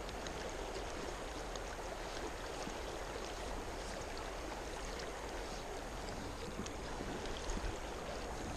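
Steady rush of flowing stream water, with faint scattered splashes.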